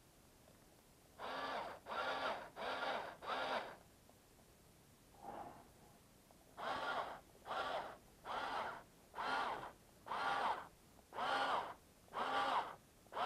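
Electric screwdriver with a long hex bit run in short trigger pulses, each spinning up and winding down in about half a second: four pulses, a pause, then eight more at a steady pace. It is gently driving in a lower shock-mount screw, deliberately not run fully home.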